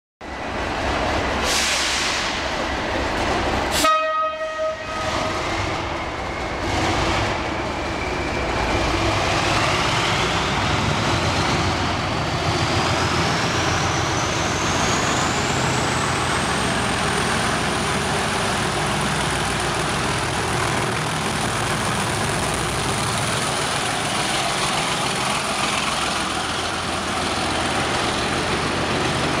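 OO-gauge model Class 37 diesel locomotive with a DCC sound decoder: a short horn blast about four seconds in, then the engine running with a whistle that rises steadily in pitch for about ten seconds and settles into a high, steady whine, over a continuous running rumble.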